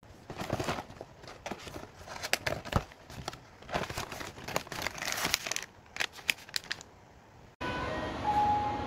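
Cardboard and paper packaging rustling and crinkling, with scattered sharp crackles, as a box of individually wrapped nut packets is unpacked by hand. Near the end it cuts abruptly to background music.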